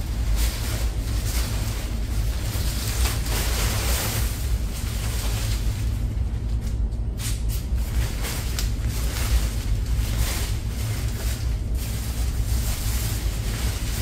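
Fabric bike cover rustling and crinkling in irregular bursts as it is shaken out and pulled over an electric tricycle, over a steady low rumble.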